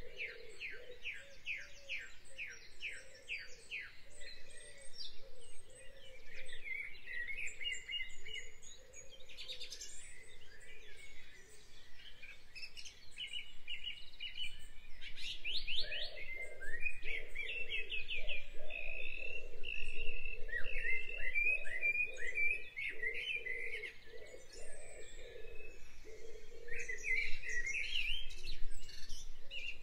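Songbirds chirping and trilling, with several calls overlapping and many in fast runs of repeated notes.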